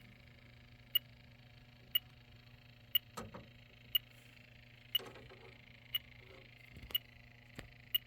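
Electronic refrigerant leak detector ticking at a steady slow rate, about once a second, with faint handling noise in between. A steady, unhurried tick means it is not sensing refrigerant at that spot.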